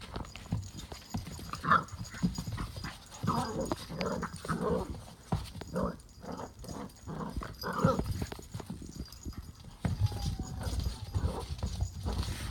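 Puppies playing rough on a hardwood floor: claws clicking and scrabbling, with a run of short play growls and yaps in the first half.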